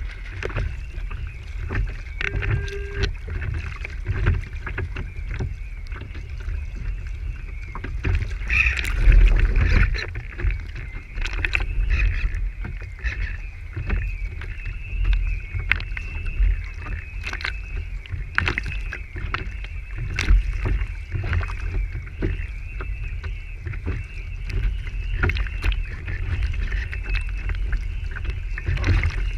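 Water rushing and slapping against the hull of a Lintel IOM radio-controlled sailing yacht as it sails through choppy water, heard from a camera on its stern, with a low rumble of wind on the microphone and many small knocks. A louder surge comes about nine seconds in, and a thin steady high whine runs underneath.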